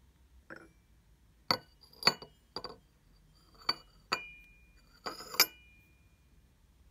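Antique Meissen porcelain teacup clinking against its porcelain saucer as it is turned over and set upright: about seven sharp clinks, the two near the end ringing briefly.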